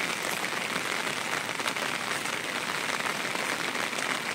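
Steady rain falling, with many small drops pattering.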